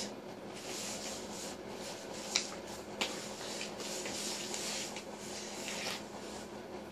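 Soft rustling and shuffling of a baby moving about on a floor mat, clothes and hands rubbing against it, with two light taps about half a second apart near the middle.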